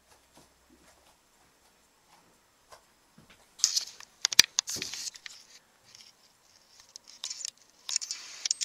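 Rustling and handling noise from a camera moved against a fabric robe close to the microphone, with a sharp click about four seconds in and more rustling near the end; the first few seconds are nearly quiet.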